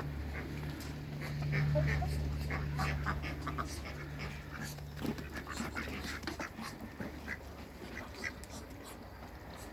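Ducks making short, scattered soft calls over a low steady hum that stops a little past halfway through.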